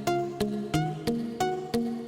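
Background music with a steady beat, pitched notes at about three a second.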